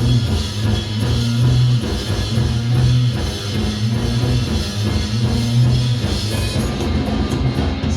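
Live rock band playing an instrumental passage between sung lines: a drum kit keeps a steady beat under a bass line and guitar.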